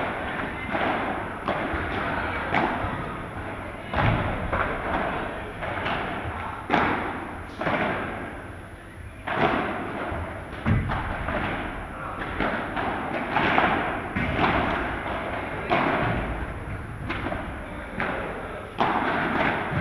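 Padel rally: sharp thuds at irregular intervals as the ball is struck by solid padel rackets and bounces off the court and its walls, echoing in a large indoor hall.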